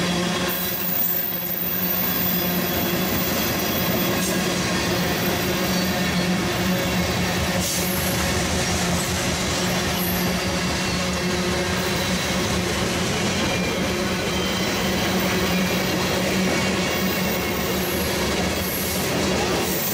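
Norfolk Southern covered hopper cars rolling past, a steady noise of steel wheels on rail with a steady low hum under it.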